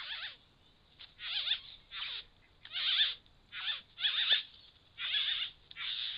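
Satin bowerbird giving a run of harsh chattering calls: about eight separate bursts of roughly half a second each, with quick wavering down-sweeps.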